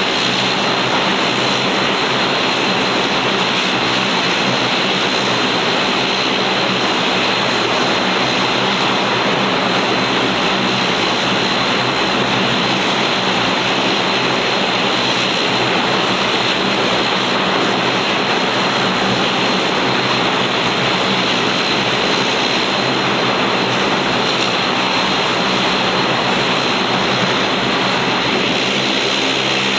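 Bombardier Dash 8 Q400's Pratt & Whitney PW150A turboprop engines and propellers running steadily and loud, a dense even rush with a low, steady propeller hum under it.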